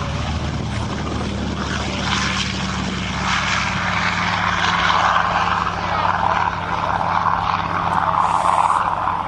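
Yak-11 warbird's US-made Pratt & Whitney 14-cylinder radial engine and propeller running at high power in flight. The sound grows louder about two to three seconds in and stays strong.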